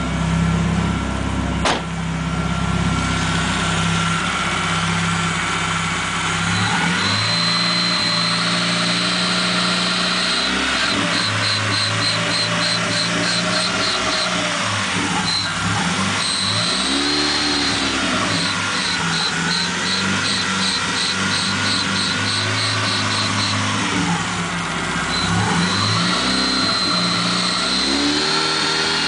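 Dodge Neon engine idling and being revved several times. From about a quarter of the way in, a high-pitched squeak or whine runs over it, steady at times and chirping in quick pulses at others. This is the new noise that appears when the throttle is touched, cause not yet known. A sharp click sounds near the start.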